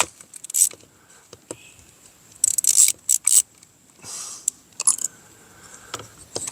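Hand tools and plastic parts of a two-stroke weed whacker being handled during disassembly: scattered clicks and short scrapes, the loudest a pair of scrapes about two and a half to three and a half seconds in.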